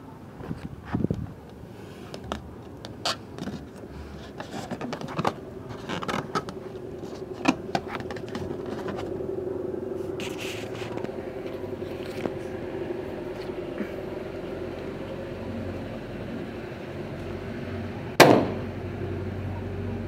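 A balloon bursting with a single sharp bang near the end, preceded by scattered small clicks and knocks.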